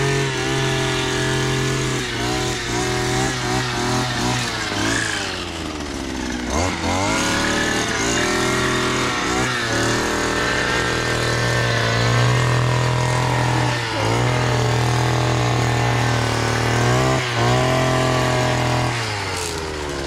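Petrol brush cutter (string trimmer) engine running at high speed. Its pitch dips and picks up again a few times as the throttle is eased and reapplied, and it falls away near the end as the throttle is released.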